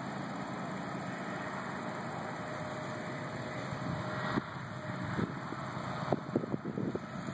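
Freight train approaching at a distance: a steady rumble, joined from about four seconds in by irregular sharp knocks that come more often toward the end.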